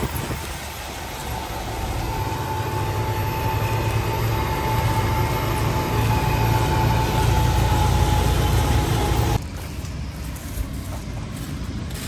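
CLAAS Xerion four-track tractor pulling a tillage cultivator past at work, a steady engine drone with a thin whine over it, growing louder as it comes by. The sound cuts off suddenly about nine seconds in, leaving a quieter open-air background.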